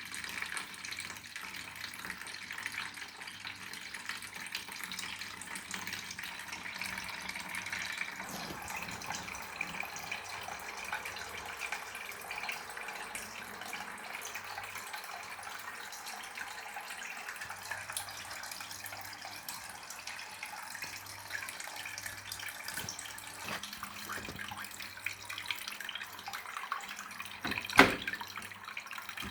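Washing machine filling with water: a steady rush of water running in, with a low hum that comes and goes. One sharp knock near the end.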